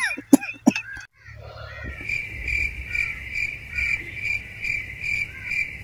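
A man coughs briefly in the first second. After that an insect chirps, cricket-like: a steady high buzz that pulses about three times a second.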